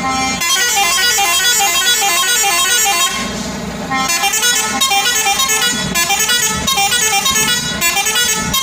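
Lorry telolet (basuri) musical air horns playing rapid runs of notes that step up and down and repeat over and over, with several horn lines overlapping.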